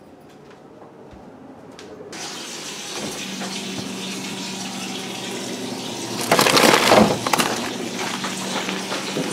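Steady rushing hiss with a low hum, the sound of the open freezer compartment of a side-by-side refrigerator. About six seconds in, frozen food packages are rummaged, giving a louder second or so of crinkling and crackling plastic.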